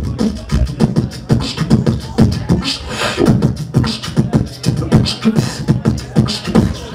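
Live beatboxing into a handheld microphone: a fast, unbroken rhythm of deep vocal kick drums and sharp snare-like clicks.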